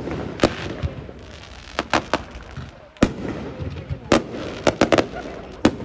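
Fireworks bursting: about ten sharp bangs, some coming in quick runs of two or three near two seconds and five seconds in, over continuous crackling noise between them.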